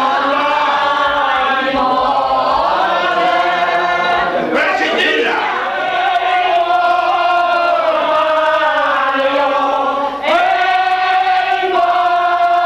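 A group of men and women singing together loudly in long, held notes, with a short break about ten seconds in before the next note.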